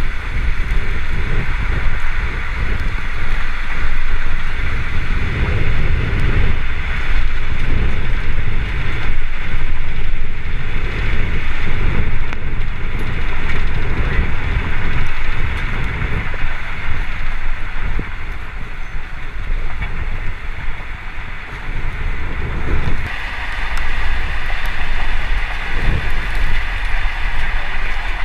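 Strong storm wind buffeting the microphone: a loud, uneven rumble that surges and eases, with a steady hiss above it that shifts in tone about two-thirds of the way through.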